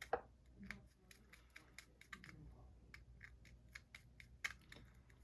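Faint, irregular light clicks and ticks of a small screwdriver and screw being worked into the metal frame of a Penn 320 GT2 fishing reel.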